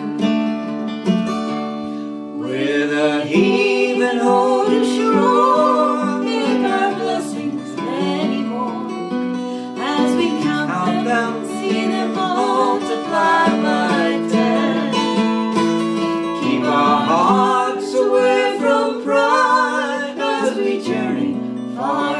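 Acoustic guitar strummed under a folk song about those who go to sea, with a wavering melody line coming in about two and a half seconds in and carrying on over the chords.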